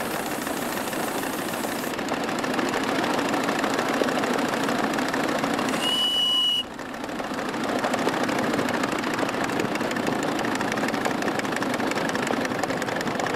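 A 7¼-inch gauge coal-fired live steam locomotive, a model of a Wren, running along the track with the steady noise of its exhaust and wheels on the rails. A high hiss stops about two seconds in. About six seconds in there is one short, high, steady whistle blast.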